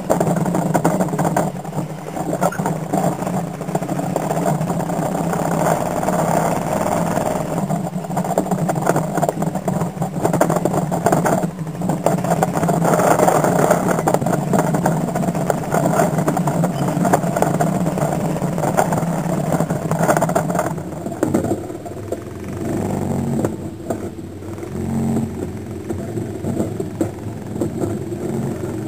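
ATV engine running as it tows a homemade tandem-axle trailer over rough, muddy ground. The engine note holds steady at first, then shifts up and down in the last several seconds.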